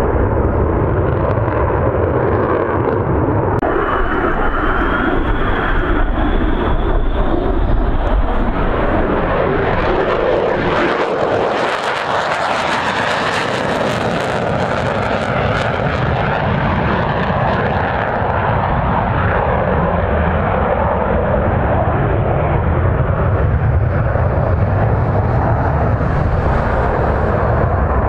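Jet noise from an F-22 Raptor's twin turbofan engines during a low pass. It is loud and steady, with a thin rising whine about four to seven seconds in. It turns brighter and hissier from about ten to sixteen seconds in as the jet passes closest, then duller again.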